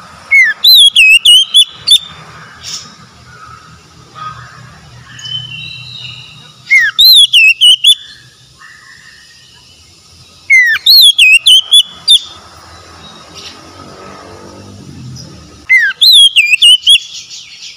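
Oriental magpie-robin singing: the same loud whistled phrase four times, about every five seconds. Each phrase is a sliding note followed by a quick run of looping high whistles.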